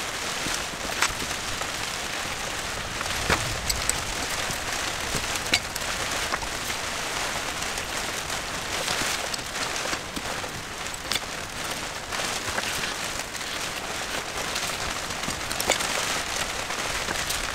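Steady rain, with occasional light clicks of a small screwdriver and metal parts as the jets are unscrewed from a bank of motorcycle carburettors.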